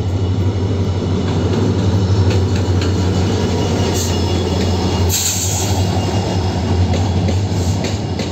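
Indian Railways passenger train pulling into the platform close by: the locomotive and coaches roll past with a steady low rumble and wheel noise. A short sharp hiss comes about five seconds in.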